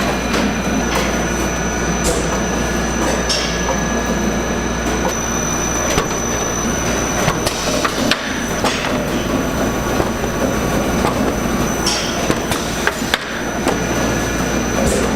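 Steady roar of a busy commercial kitchen, with a low hum and a thin high tone underneath and scattered sharp clanks of metal utensils.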